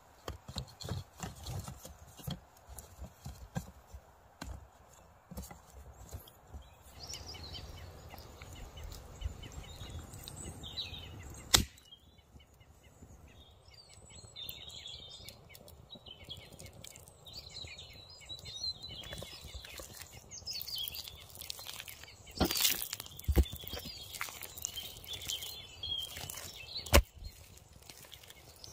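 Dry twigs being handled and snapped, a quick run of sharp cracks and rustles. Later, small birds chirp on and off, with a few loud sharp knocks near the end.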